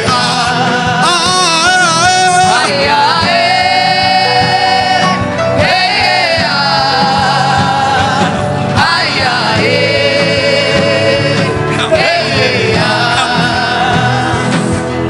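Gospel worship music: a voice singing long, wordless held notes with wide vibrato, in phrases of a few seconds each, over a steady instrumental backing.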